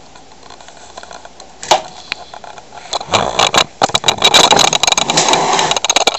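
Handling noise: a loud stretch of rustling and scraping full of sharp clicks and knocks, starting about three seconds in, after a quiet start with a single click.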